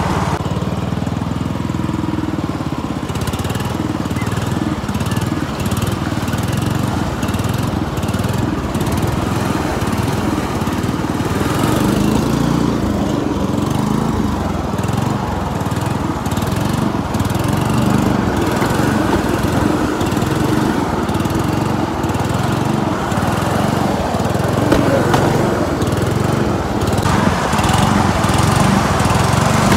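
Small engine of a motorized rail skate (a light rail trolley) running steadily as the trolley rolls along the track.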